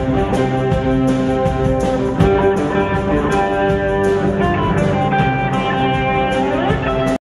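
Guitar-led background music with a steady beat, cutting off suddenly near the end.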